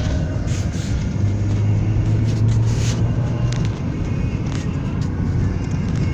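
A car driving on a paved road, heard from inside the cabin: steady rumble of engine and road noise, with a low hum that swells for a couple of seconds in the middle and a few light clicks.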